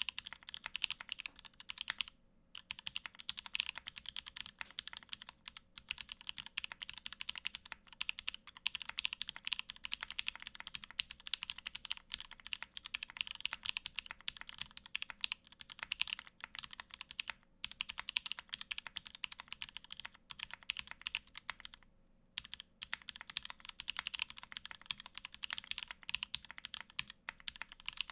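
Continuous fast typing on a mechanical keyboard with vintage Cherry MX Black linear switches in an aluminium plate, a dense run of keystroke clacks with a few brief pauses, one about two seconds in and others near the middle and toward the end.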